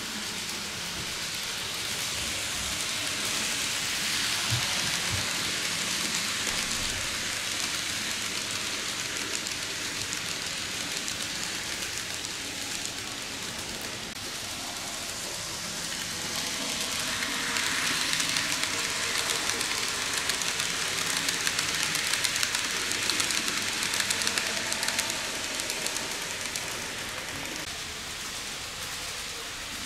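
TOMIX N-gauge C57 steam locomotive model and its coaches running on the model railway track: a steady hiss with fine rapid ticking, swelling twice, loudest in the second half.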